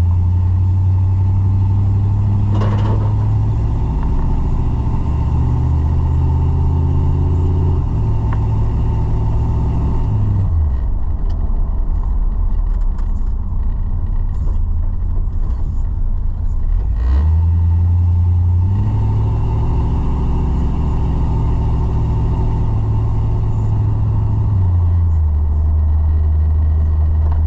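1981 Chevrolet C10 pickup being driven, heard from inside the cab: the engine runs under load and its pitch steps a few times, drops away about ten seconds in as the truck slows, then climbs again about seven seconds later as it pulls away.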